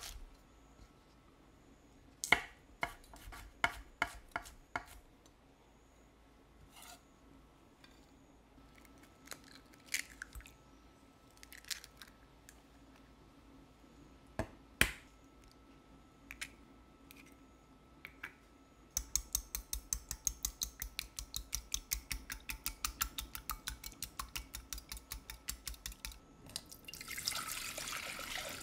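Kitchen knife chopping food on a cutting board: a few slow separate cuts, then a fast, even run of strokes for several seconds. A short rushing noise follows near the end.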